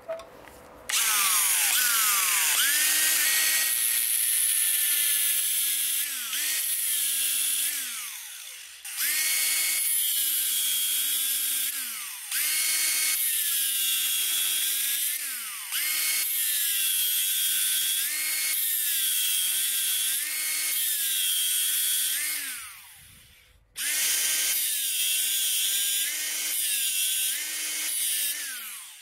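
Angle grinder with a thin cutting disc cutting notches into a steel bar, its motor whine sagging and recovering in pitch over and over as the disc bites. The grinder runs in five bursts, with short pauses about 8, 12, 15 and 23 seconds in.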